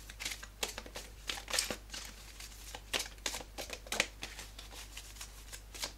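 A deck of oracle cards being shuffled by hand: irregular short clicks and slaps of cards sliding against each other.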